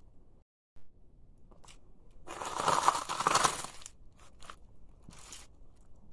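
A sneaker crushing a heap of puffed snacks on a hard floor: one loud crunch lasting about a second and a half, then a few short crackles as the crumbs are ground under the sole.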